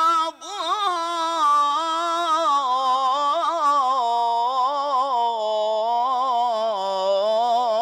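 A man's solo unaccompanied voice singing an Islamic ibtihal: one long melismatic phrase with wavering ornaments and no break. The pitch sinks gradually toward the end.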